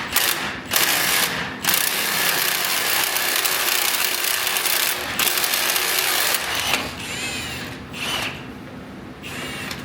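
Power tool loosening bolts, run in long bursts with brief pauses, then in a few shorter spurts near the end with a rising and falling whine.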